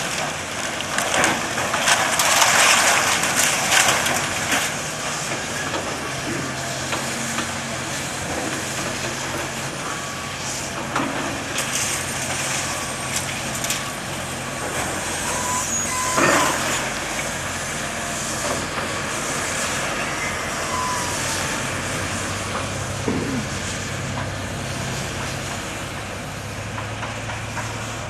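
A demolition excavator's engine runs steadily while its jaws tear at the building, with crashing and scraping of falling debris and metal. The loudest crashing comes about one to four seconds in, and there is a sharp bang with a screech of metal around the middle.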